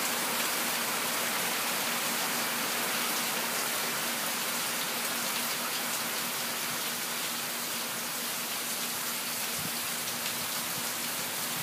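Steady rain falling, heard from under a covered patio roof: an even hiss with no letup.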